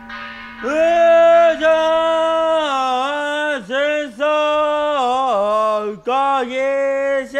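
A man's voice chanting in long held notes at one steady pitch, with short dips and breaks between phrases, in the manner of Buddhist sutra chanting. It comes in under a second in, over the fading tone of a struck temple bell.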